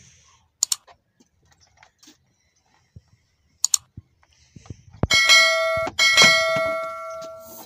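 A metal part struck twice about a second apart, each strike ringing on like a bell and slowly fading; a couple of light clicks come before.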